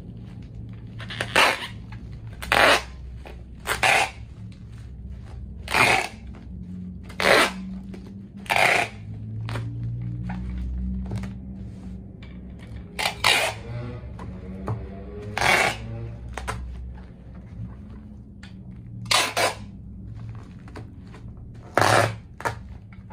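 Packing tape pulled off a handheld tape dispenser in short, loud rips, about ten in all, while a bubble-wrapped parcel is taped shut. A steady low hum runs underneath.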